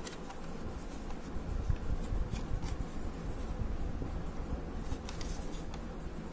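Black plastic two-piece 360° phone case being handled and fitted together by hand: plastic rubbing against plastic and fingers, with scattered small clicks.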